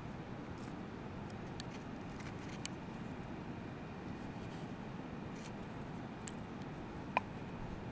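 Small handling sounds of a ferro rod fire steel being readied: a few faint clicks and rustles, with one sharper small metallic click a little past seven seconds in. Under them runs a steady rushing background noise.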